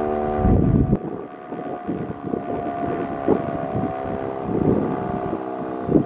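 Sentry 10V siren sounding a steady, unwavering chord, growing fainter about a second in. Gusts of wind buffet the microphone throughout, loudest about half a second in.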